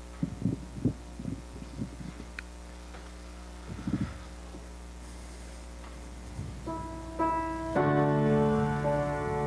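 Grand piano begins playing about seven seconds in: a few notes, then slow, sustained chords that ring on. Before that, only scattered soft low knocks and bumps.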